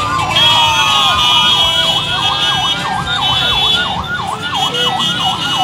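Electronic siren, several slow overlapping wails at first, then switching about two seconds in to a fast yelp of about three rising-and-falling sweeps a second.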